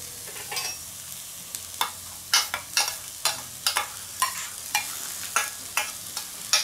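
Chopped onions being scraped out of a stainless steel bowl onto a hot steel fire plate: a faint steady sizzle under a run of sharp clicks, about two a second from about two seconds in, as a spoon knocks and scrapes against the bowl.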